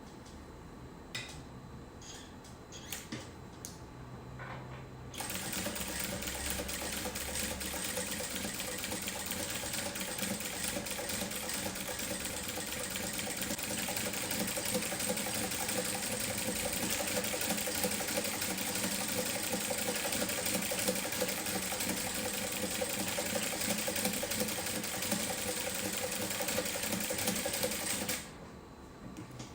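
Industrial straight-stitch sewing machine fitted with a zigzag attachment, sewing a zigzag stitch pattern. It runs steadily from about five seconds in and stops abruptly near the end. A few light clicks come before it starts.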